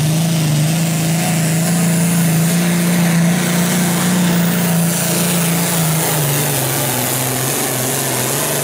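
Turbocharged diesel engine of an International pulling tractor running hard as it drags the weight-transfer sled. Its steady, loud note sags slightly about six seconds in as the load comes on.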